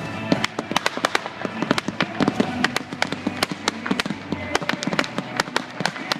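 Daytime fireworks going off in a fast, irregular string of sharp cracks and pops, several a second.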